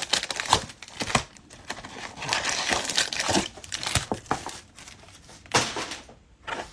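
Plastic wrapping on trading card boxes and packs crinkling and tearing as it is handled and opened, with irregular crackles and sharp clicks.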